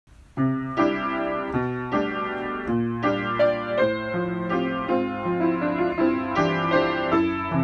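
Piano music: a melody over sustained chords, with notes struck one after another, starting about half a second in.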